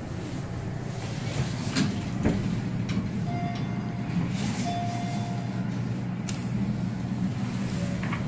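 Inside an elevator car: a steady low hum, a couple of sharp knocks, then two electronic beeps, one short and one about a second long, as the car's floor buttons are pressed.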